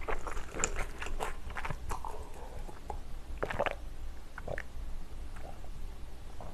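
Chewing a mouthful of noodles with short mouth clicks, then drinking from a glass jar with swallowing sounds from about three seconds in.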